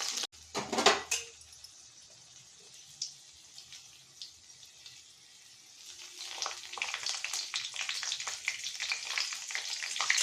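Peeled garlic cloves frying in hot mustard oil. A loud burst of sizzling comes about half a second in, then quieter crackling, and from about six seconds in a dense, spitting sizzle.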